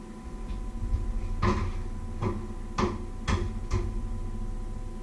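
Kitchenware being handled at the counter: five knocks and clatters spread over a couple of seconds, over a faint steady appliance hum.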